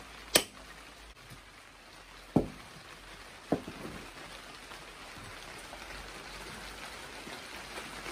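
A club hammer strikes a brick bolster chisel once with a sharp crack as a concrete block is cut, followed about two and three seconds in by two duller thuds as the block is handled. A steady hiss of rain runs underneath.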